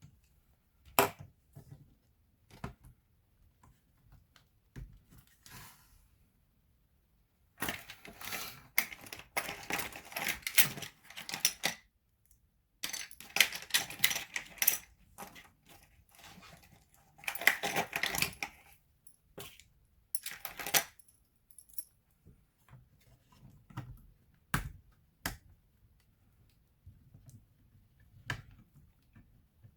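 Hands working on a laptop: sharp clicks and clattering rattles of small hard plastic and metal parts. The sound comes in several bunches of a few seconds each, with short pauses between.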